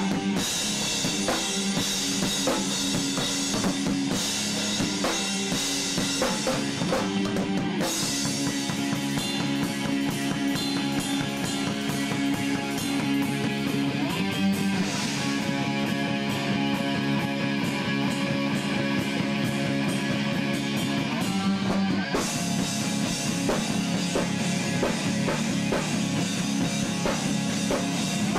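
Rock band playing: drum kit, electric guitar and electric bass. The high cymbal wash drops out about two-thirds of the way through, leaving guitars and drums.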